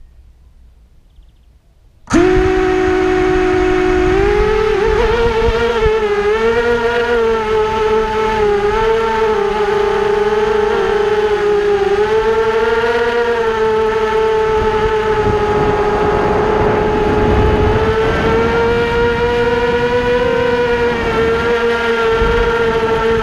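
Multirotor drone's electric motors and propellers spinning up abruptly about two seconds in, then a loud whine that wavers in pitch as the throttle changes in flight, heard from the camera on the drone.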